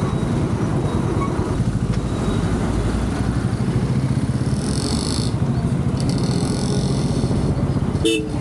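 Royal Enfield Classic 350's single-cylinder engine running at low speed with a steady, rapid beat. Two stretches of hiss come around the middle, and a short horn toot sounds near the end.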